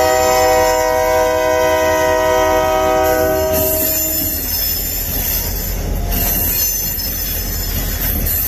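Union Pacific freight locomotive's air horn holding one long chord of several notes that cuts off about four seconds in, over the rumble of the train. The train then rolls past with high-pitched wheel squeal.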